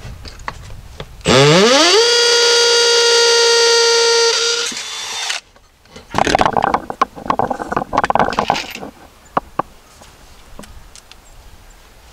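Power drill driving a screw: the motor's whine rises quickly, holds one steady pitch for about three seconds, then winds down and stops. Irregular clicks and rattles of handling parts follow.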